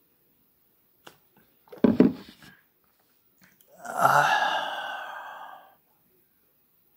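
A man's mouth and breath sounds after a swig of beer: a short, low vocal sound about two seconds in, then a long breathy exhale of nearly two seconds that starts loud and fades away.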